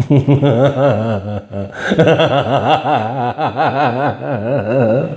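A man's long, unbroken mad laugh, put on as a horror-villain cackle, its pitch wobbling quickly up and down.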